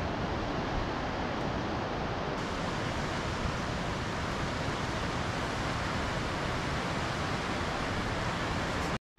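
Steady rushing of the Kootenai River's waterfall and rapids, an even wash of water noise, which cuts off suddenly just before the end.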